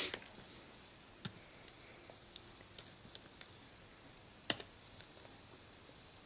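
Typing and clicking on a laptop keyboard: about nine separate, irregular keystrokes and clicks, the loudest about four and a half seconds in.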